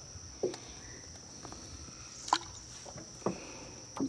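Steady high-pitched insect buzz, with a few scattered knocks and taps, the loudest about two seconds in.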